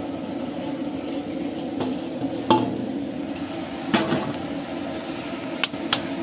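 Metal spatula stirring crumbled boiled potatoes into spices in an iron kadhai, scraping and giving a few sharp knocks against the pan, over a steady hum.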